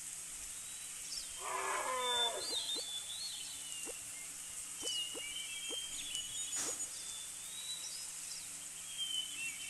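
A single animal call about a second long, falling in pitch, about one and a half seconds in, over scattered high bird chirps.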